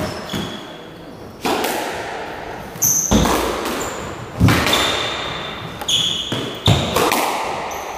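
Squash rally: a rubber squash ball is struck by rackets and smacks off the court walls. Sharp hits come about every second or so, each echoing in the enclosed court, with short high squeaks of court shoes on the wooden floor between them.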